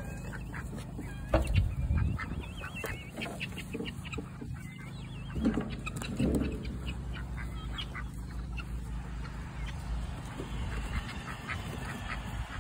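Domestic ducks quacking in short, scattered calls, loudest at about one and a half seconds in and again around six seconds.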